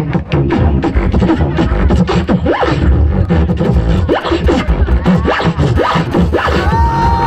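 Beatboxing into a handheld microphone, amplified: fast kick, snare and hi-hat mouth sounds with heavy bass. Near the end a held, pitched vocal tone comes in over the rhythm.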